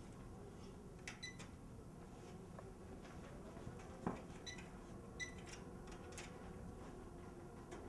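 Short electronic beeps from the keypad control panels on powered mobile library shelving as buttons are pressed, a few of them in quick pairs, with small clicks and one sharp thump about four seconds in, over low steady room noise.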